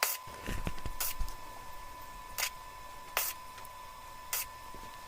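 Short, sharp clicks, one about every second, over a faint steady high whine, with a brief low rattle in the first second.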